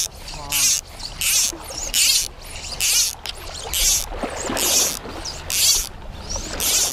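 Fly line being stripped in by hand in steady pulls, a swish about every 0.7 s, over the low rush of river current.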